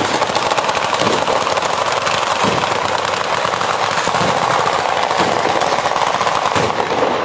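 Batteria alla bolognese, a ground-level firework battery of firecrackers, going off as one unbroken rapid rattle of bangs.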